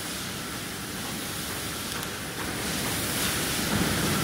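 Steady machine noise of a running food weighing and packaging line, a linear weigher and rotary premade-bag packing machine, with a few faint clicks; it grows a little louder in the second half.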